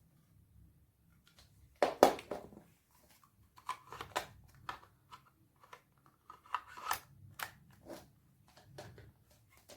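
A series of irregular clicks and knocks, as of objects being handled, the loudest about two seconds in.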